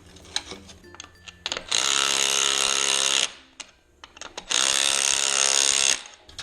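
A power tool runs in two bursts of about a second and a half each, with a few light clicks before the first.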